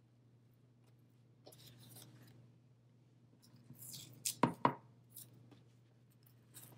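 Hand weaving yarn through the warp strings of a small loom: the yarn drawn through with a soft rustle, then a few sharp clicks and taps from the needle and loom about four to five seconds in. A faint steady low hum runs underneath.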